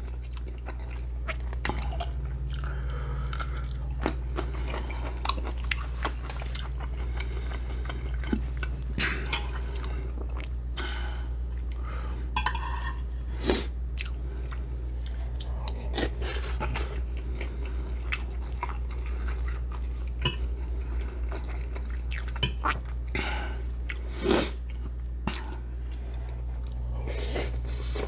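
Close-miked chewing and crunching of pinakbet, a pork and vegetable stew, with many short irregular mouth clicks and crunches over a steady low hum.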